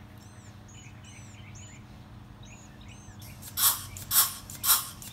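A few short bird chirps over a low hum. Then, about two-thirds of the way in, an air-powered LockNLube grease gun starts pumping, with sharp strokes about twice a second.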